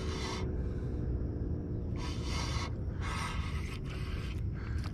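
Fishing reel being cranked in short raspy spurts, about four turns of half a second or less, as a small fish is reeled in. A steady low rumble runs underneath.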